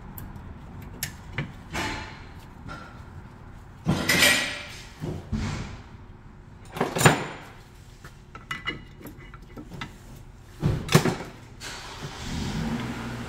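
Hand work on a disc brake: new brake pads being seated in the caliper bracket, with scattered light metal clicks and scrapes and three louder clattering bursts spread through.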